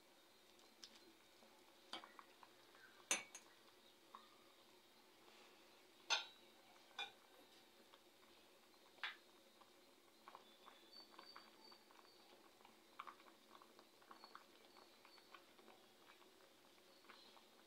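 Metal slotted spoon clinking against a stainless steel pot of boiling rice, a handful of sharp clinks with the loudest about three and six seconds in. Through the second half come faint small ticks and pops from the boiling water.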